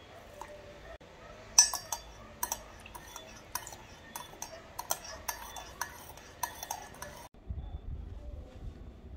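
A series of light, sharp clinks of small hard objects, about a dozen over five seconds at an uneven pace. They cut off abruptly near the end, and a low rumble follows.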